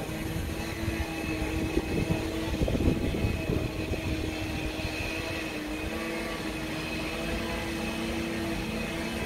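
Lawn mower engine running steadily, with a louder, uneven stretch about two to three and a half seconds in.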